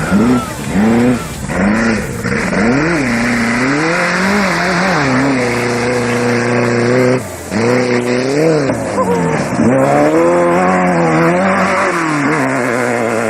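Off-road race vehicle's engine revving up and down over and over, its pitch rising and falling every second or two, with a brief drop in the sound about seven seconds in.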